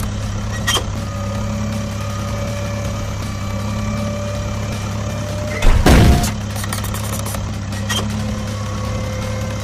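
Steady low drone of a heavy construction vehicle's engine idling, with a loud thump lasting about half a second roughly six seconds in.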